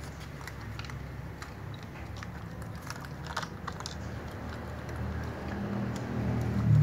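Several cats eating from plastic dishes: irregular small clicks and crunches of chewing and of muzzles knocking against the containers. A low rumble swells near the end.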